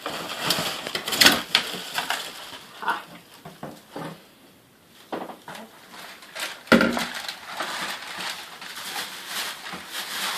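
Cardboard packaging and hard plastic vacuum parts being handled and pulled from a box: irregular rustling, scraping and clicks, with a heavier thud about two-thirds of the way through.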